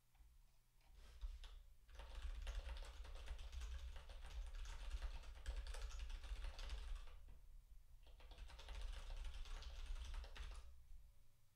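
Typing on a computer keyboard: a few scattered keystrokes, then fast continuous runs of key clicks, a short pause about two-thirds of the way through, then another quick run that stops near the end.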